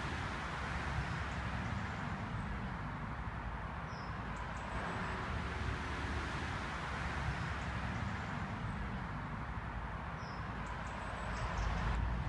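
Steady low outdoor background rumble, with a few faint, short, high bird chirps about four seconds in and again near the end.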